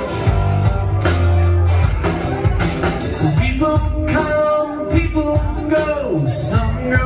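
Live rock band playing: electric guitars, bass guitar and drum kit, with a man singing lead into a microphone, the vocal clearest in the second half.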